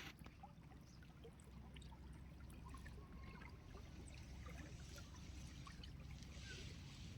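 Faint stream of water flowing, a steady low rush with scattered small trickles and droplet plinks over it, growing slightly louder toward the end.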